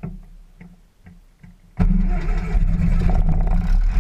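Cessna 152's four-cylinder Lycoming O-235 engine being cranked by the starter with a few faint ticks, then catching about two seconds in with a sudden jump in loudness and running steadily.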